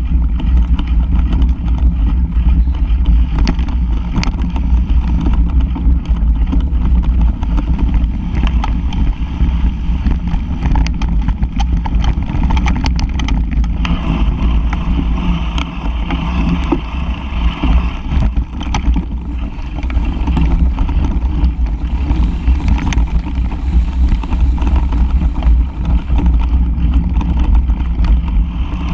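Mountain bike ridden fast over a rough dirt and leaf trail, heard from a camera mounted on the bike: a steady rumble of wind and tyres on the ground, with frequent clicks and knocks from the bike jolting over the surface. A brighter hiss rises for several seconds past the middle.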